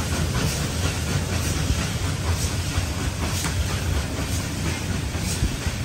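Vintage railway carriage running along the line, heard through its open doorway: a steady rumble of wheels on the rails with faint, irregular clicks from the track.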